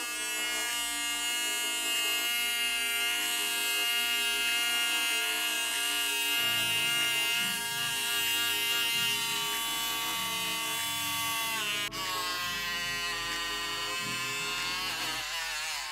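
Cordless hair trimmer's small electric motor running at full speed on a new 3.7 V lithium-ion battery, giving a steady high buzz as its blade is run over arm hair. The sound dips briefly about twelve seconds in, and the pitch wavers slightly near the end.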